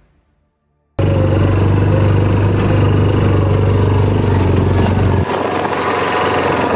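Side-by-side UTV running over a rocky dirt trail, heard from the driver's seat: engine drone and driving noise that starts suddenly about a second in. The low hum drops away about five seconds in while the driving noise goes on.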